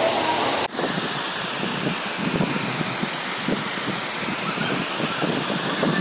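Waterfall rushing: a steady rush of falling water, broken by a short dip and a change in tone less than a second in.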